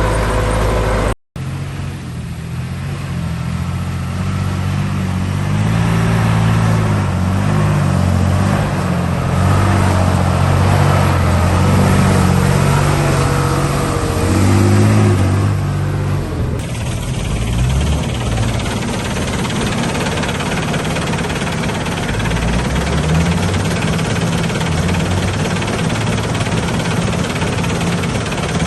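Heavy construction machine's diesel engine running and revving, its pitch rising and falling under load, then settling to a steadier run. It drops out briefly about a second in.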